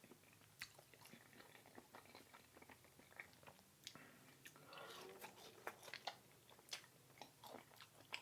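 Close-miked chewing of a bite of mac and cheese with avocado: faint, irregular little clicks and mouth smacks, a little louder about five seconds in.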